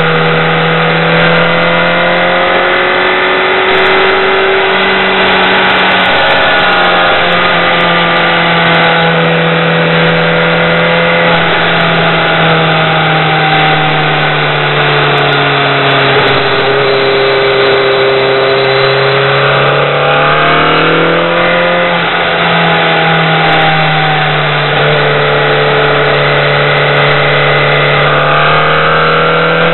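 BMW K1200R's inline four-cylinder engine running under way, recorded from a helmet camera. Its note falls and rises with the throttle through the bends, dipping twice and climbing again near the end.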